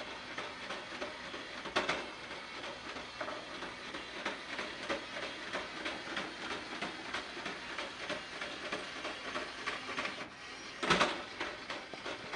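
Small toy train running, a dense rapid mechanical clatter of wheels and mechanism on the track, with a louder knock about two seconds in and another near the end.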